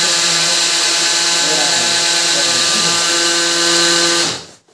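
Canon imageCLASS MF221d laser printer's drive motor running with a loud, steady whine, then cutting off suddenly about four seconds in. The motor is turning but cannot drive the main gear, whose teeth are worn away.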